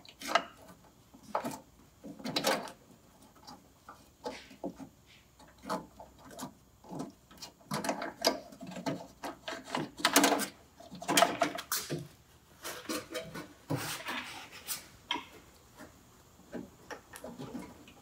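Wiring harness connectors and sheathed wires rubbing and knocking against the car body's sheet metal as they are worked through a small hole one connector at a time: irregular rustles and light clicks.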